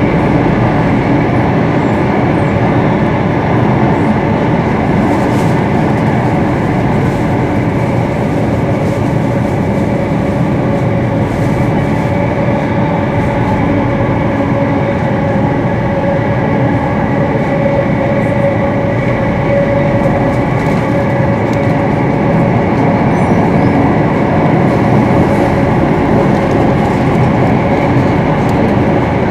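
Singapore MRT train running through an underground tunnel, heard from inside the carriage: a loud, steady rumble and rush of wheels and air, with a constant hum from the train's motors on top.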